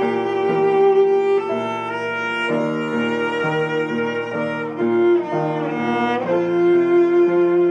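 Cello playing a hymn melody in long bowed notes, with upright piano accompaniment.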